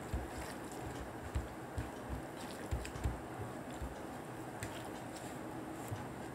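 Hands mixing rice with chana dal on a plate: faint, irregular squishing with a few soft taps and clicks.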